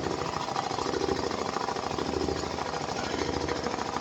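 Rotary-head flat-shuttle sewing machine stitching at speed with heavy 15# thread: a fast, steady mechanical clatter of needle strokes.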